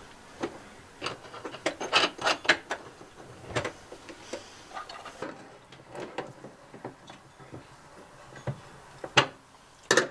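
Combination wrench tightening the nut on a fuse holder stud: irregular sharp metal clicks and clinks as the wrench turns and is refitted on the nut, busiest a couple of seconds in, with one louder click near the end.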